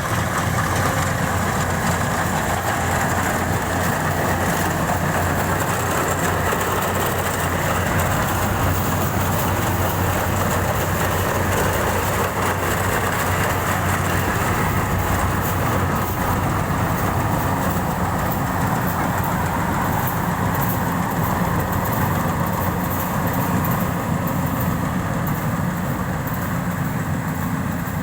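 Rice harvesting machine's engine running steadily, with a constant low hum under a broad mechanical noise.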